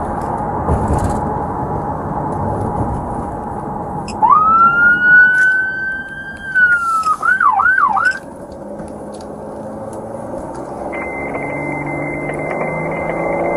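Police cruiser siren heard from inside the car. About four seconds in it rises into a wail and holds for a couple of seconds, then breaks into three quick yelps and cuts off, over the steady drone of engine and road noise.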